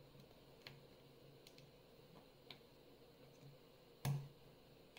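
Faint, scattered clicks of a lock pick working the pin stacks of a Lockwood euro cylinder held under tension, with a louder knock about four seconds in.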